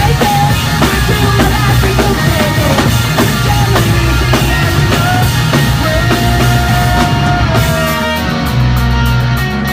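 Live rock band playing loud: distorted electric guitars, bass and a drum kit. Near the end the drums and cymbals drop out, leaving guitar and bass.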